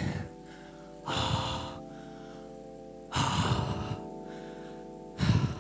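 A man breathing hard after an all-out indoor cycling effort: four heavy breaths, about two seconds apart, over faint steady background music.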